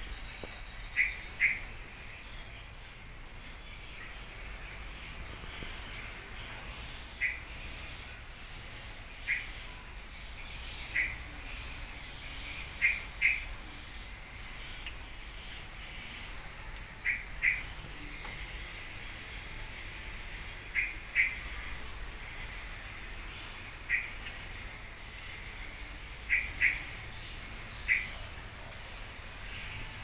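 Insects trilling steadily at a high pitch, with a bird giving short chirps, often two in quick succession, every couple of seconds.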